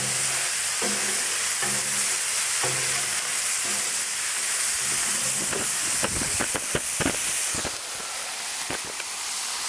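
Smash burger patties sizzling on a hot steel propane griddle, a steady frying hiss. A few scrapes and knocks of the steel spatula against the griddle come in the second half.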